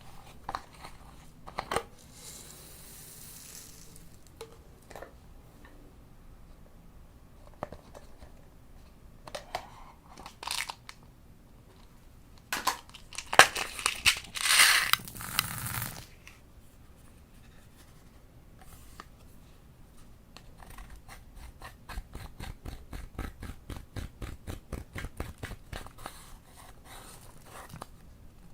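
Slime being worked by hand: scattered crunches and crackles, a louder crackling stretch about halfway through, then a fast, even run of small clicks or pops, about five a second, near the end.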